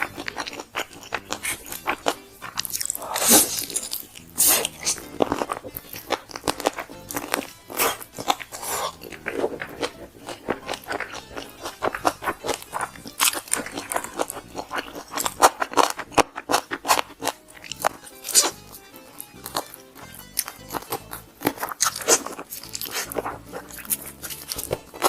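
Crispy fried chicken being bitten and chewed close to the microphone: a dense run of sharp, irregular crunches, several a second, over background music.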